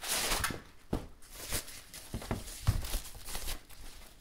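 Laptop packing material being handled: foam end pieces pulled off and a soft wrapping sleeve rustling and crinkling. A few dull knocks come through, the strongest a little under three seconds in.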